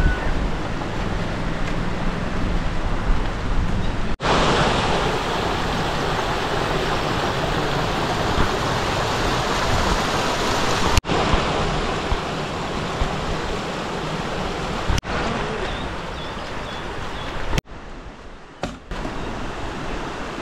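Steady rush of flowing stream water, broken by several abrupt cuts, with a quieter stretch near the end.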